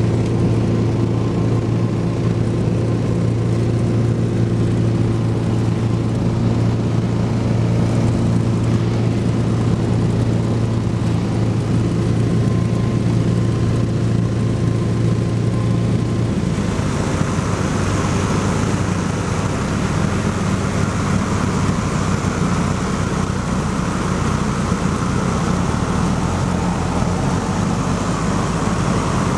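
Light propeller aircraft's engine droning steadily, heard from inside the cabin on approach to land. About halfway through the steady low hum changes abruptly to a rougher sound with more hiss.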